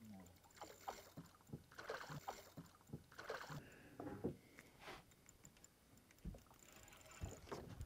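Faint, irregular splashing and lapping of water at the side of a small boat as a hooked snook swirls at the surface, with a few soft knocks.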